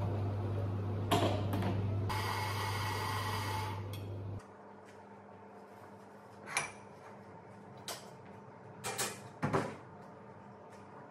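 Espresso-bar work sounds: a steady low machine hum with a short loud hiss over it that stops about four seconds in, then several sharp clacks and knocks of barista equipment being handled at the espresso machine.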